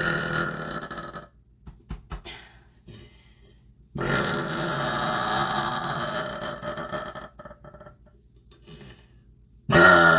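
A woman burping out loud: one burp trailing off about a second in, a long drawn-out burp of about three seconds in the middle, and another burp starting just before the end.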